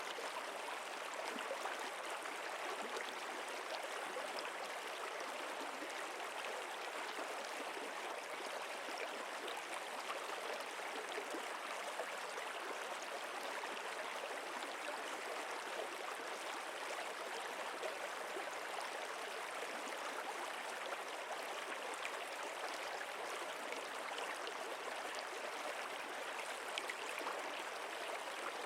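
Flowing water, a steady even rush that does not change.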